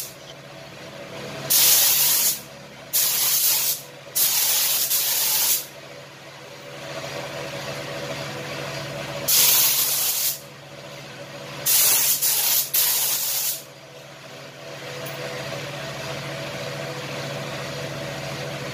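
Sagola Jet 5000 gravity-feed spray gun, set full wide open at 35 PSI, spraying unthinned clear coat in six short trigger pulls of hissing air, each about a second long, the first three within the first six seconds and the rest around the tenth to fourteenth second. A steady machine hum runs underneath.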